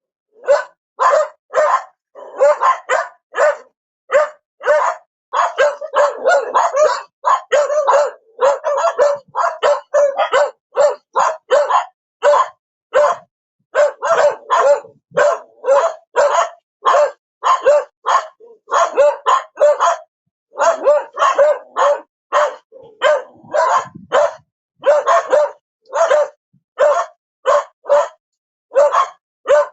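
A dog barking over and over in short, evenly repeated barks, about two a second, with a few stretches where the barks come closer together.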